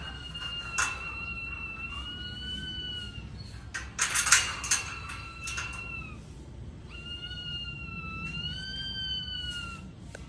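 A parrot giving long, drawn-out whistled notes, three in a row, each held for a couple of seconds with a slightly wavering, siren-like pitch. A quick run of sharp cracks comes near the middle.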